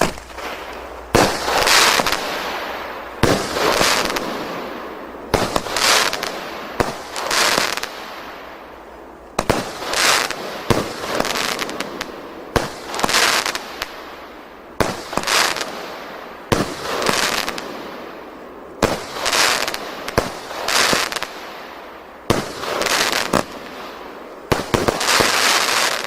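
A 'Kapriz' consumer fireworks battery (cake) firing shot after shot, more than a dozen in all, about one every two seconds. Each shot is a sharp launch thump followed by a noisy burst that swells for about a second and dies away.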